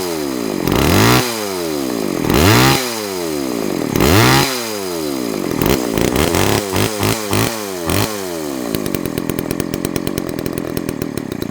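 Homelite XL two-stroke chainsaw engine revved up and down four times, then blipped quickly several times, then running steadily until it cuts off abruptly at the very end.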